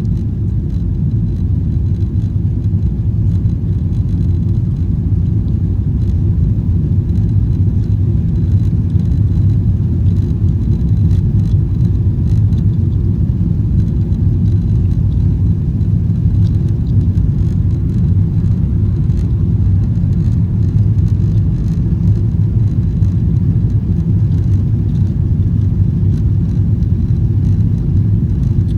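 Steady, loud low rumble inside the cabin of a Boeing 777-300ER in motion.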